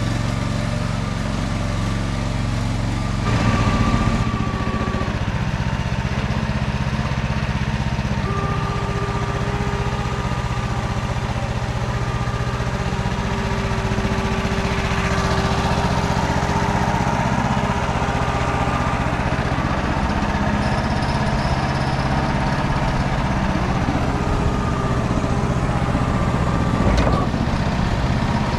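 MT8-070 Mini small tractor's engine running steadily under load while ploughing. A thin whine comes and goes over the engine, which swells briefly louder about three seconds in and again near the end.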